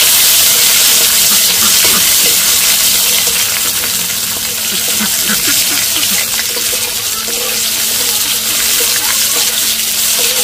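Chopped tomatoes sizzling in hot oil in a kadai, a loud, steady hiss, as they are stirred with a metal spatula.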